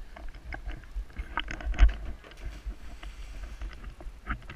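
Handling noise of an action camera on a hand-held pole: scattered knocks and rubbing as the pole shifts in the boy's hands while he walks, with a sharp bump a little under two seconds in, over a low wind rumble on the microphone.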